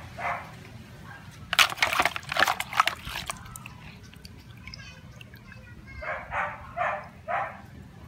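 Washing-machine lint filter dunked and swished in a bowl of water, splashing for about a second and a half a couple of seconds in. A dog barks once at the start and four times in quick succession near the end.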